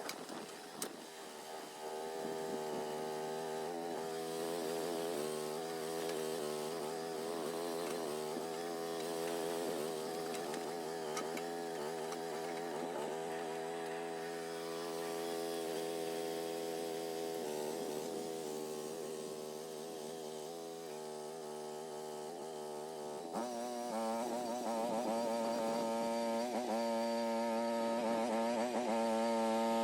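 Groundhog mini excavator engine running under hydraulic load, its pitch wavering as the revs shift while it digs. It steps up and gets louder about 23 seconds in.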